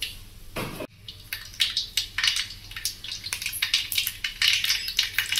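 Mustard seeds tempering in hot oil in an aluminium kadai, sizzling and spluttering with many quick, irregular crackles and pops from about a second in.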